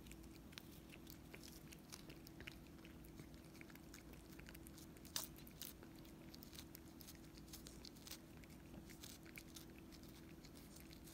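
Cat licking puree treat from a squeeze tube: faint, quick wet clicks and smacks of the tongue, irregular, with one louder click about five seconds in.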